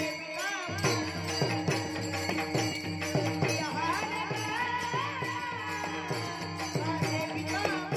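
Warkari devotional bhajan: a boy's voice sings the melody over the steady drone of a Warkari veena. A chorus of small brass hand cymbals (taal) keeps the beat, and a drum joins with regular low beats about a second in.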